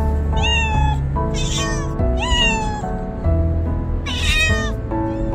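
A cat meowing repeatedly: four loud, drawn-out meows, with music playing underneath.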